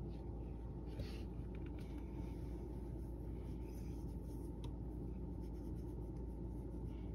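A hand rubbing and scratching a cat's fur, faint scratchy rustles about a second in and again near the middle, over a steady low background hum.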